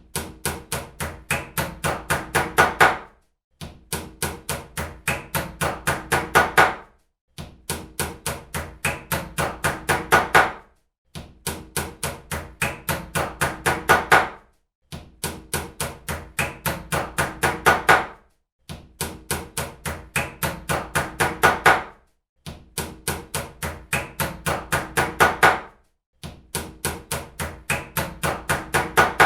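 Hammer driving nails into a wooden plank: runs of about a dozen quick strikes, about four a second, each run growing louder toward its end and followed by a brief pause, over and over.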